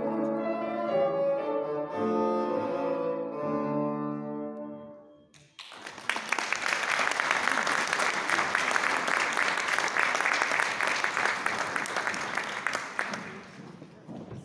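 Bassoon with piano accompaniment playing the last sustained notes of a sonata, which end about five seconds in. Then the audience applauds, the clapping dying away shortly before the end.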